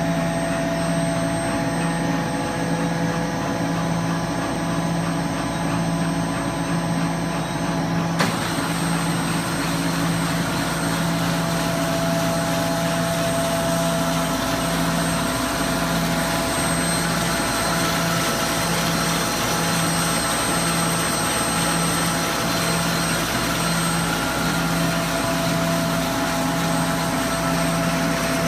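IBM Ricoh 4100 continuous-forms laser printer running: a steady mechanical hum and whir, with a low pulse repeating about once a second. Its hiss grows louder about eight seconds in.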